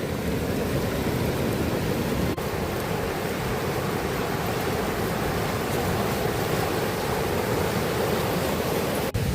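Steady rushing noise of a waterfall, with two very brief dropouts about two seconds in and near the end.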